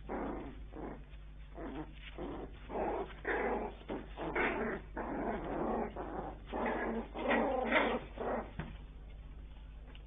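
Bichon Frise puppies making a run of short, irregular whines and grunts that stops about eight and a half seconds in.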